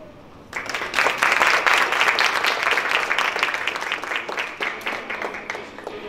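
Audience applauding, starting about half a second in and slowly dying away near the end.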